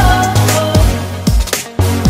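Background music with a steady beat of deep kick drums, about two a second, over a sustained bass and a melody line, briefly dropping out near the end.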